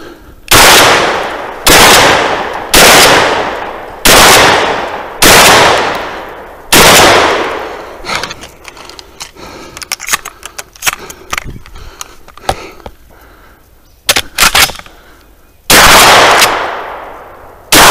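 Shotgun fired six times in quick succession, about one shot a second, each with a long echoing tail. A run of light clicks and two sharp clacks follows as the gun is handled and reloaded, then two more shots near the end.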